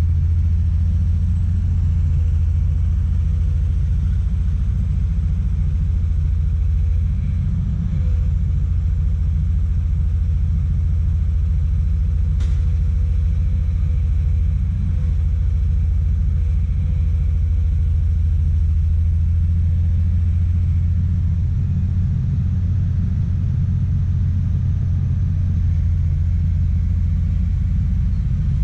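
Komatsu PC200 excavator's diesel engine running steadily, a low rumble, with one brief click about twelve seconds in.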